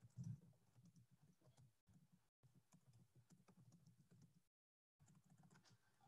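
Near silence on a webinar audio feed: a faint low hum with scattered faint clicks, cutting out completely a few times, with the longest gap about half a second near the end, as the unstable internet connection drops the audio.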